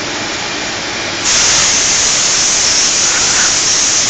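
Compressed-air blow gun hissing loudly and steadily as it blows out a brake lining mould on a pressing machine, starting about a second in. Under it there is a steady machine noise.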